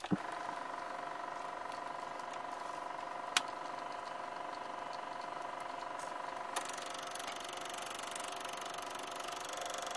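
Sound effects for an animated logo: a steady electronic hum with two sharp hits about three seconds apart, the second as the lower line of text appears, after which the hum takes on a brighter, hissier tone.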